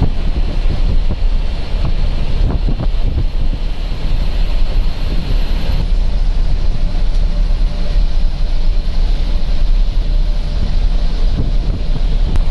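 Cabin noise inside a non-AC intercity bus at highway speed: a steady low engine and road rumble with a rushing wind hiss.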